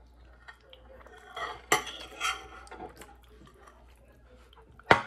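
Cutlery clinking and scraping against a dish as the last bite of poutine is gathered up: a short run of clatters, then one sharp clack near the end, the loudest sound.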